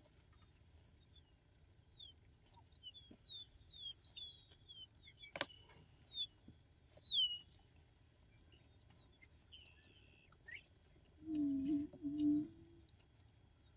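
A male Attwater's prairie-chicken booming near the end: a low, resonant call of about one and a half seconds, made with its inflated neck sacs as a courtship display on the lek. Before it, other birds chirp with quick high notes, and a single sharp click comes about five seconds in.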